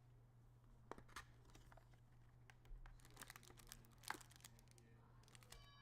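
Faint crinkling and tearing of trading-card packaging being handled, with scattered small clicks, the sharpest about four seconds in, over a steady low hum.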